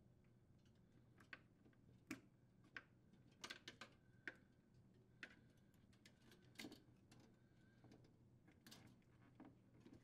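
Faint, irregular clicks and light rattling of plastic wire harness connectors and wires being handled and snapped together.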